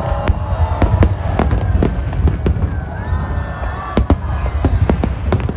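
Aerial fireworks display: shells bursting with sharp bangs in quick, irregular succession over a continuous low rumble of further explosions.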